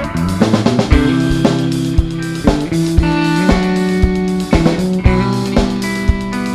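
Instrumental section of a rock song: guitars playing sustained chords over a drum kit keeping a steady beat of about two hits a second, without vocals.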